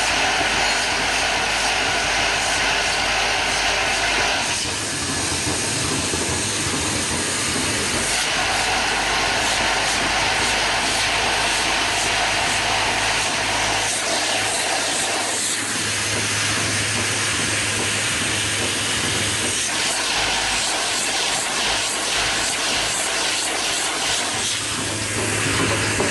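Flip-top cap assembling machine running: a vibratory bowl feeder hums steadily while the plastic caps rattle through its tracks and chutes, over dense fast clicking from the assembly mechanism.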